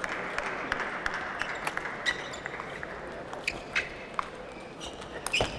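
Table tennis rally: a celluloid ping-pong ball clicking sharply off the paddles and the table, roughly two to three hits a second at an uneven pace, over the steady background of a large hall.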